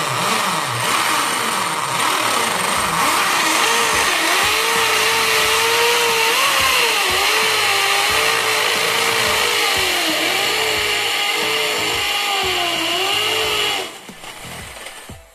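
Corded electric drill boring a 10 mm hole into a wall, the motor running under load with its whine rising and dipping as the pressure on the bit changes. It stops near the end.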